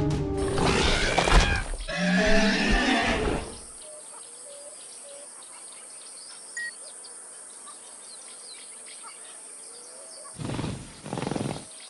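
Recorded velociraptor sound effects from a dinosaur phone app: two loud screeching, growling calls, then a quiet jungle ambience with faint bird chirps, and two more loud calls near the end.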